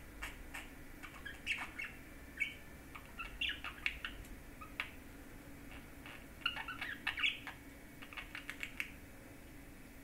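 Budgerigar chattering softly with its head inside a hollow bell toy: clusters of short chirps and clicks with pauses between, the busiest bursts about a third of the way in and again past the middle.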